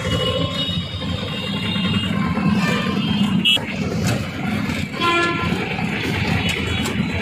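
Traffic noise heard from inside a moving auto-rickshaw: the engine runs under a steady rumble of traffic. Vehicle horns honk, a short one about three and a half seconds in and a longer one about five seconds in.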